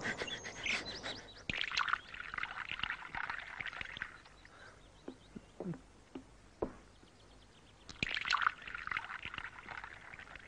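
Small birds chirping, then tea poured from a teapot into a china cup near the end.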